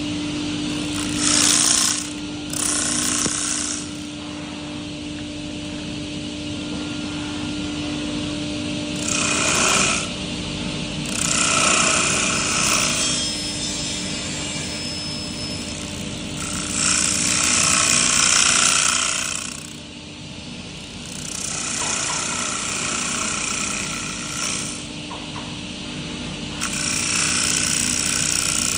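Wood lathe running with a steady motor hum while the cutter bites into the spinning wood in repeated passes. There are about seven loud hissing bursts of cutting noise, each lasting one to three seconds.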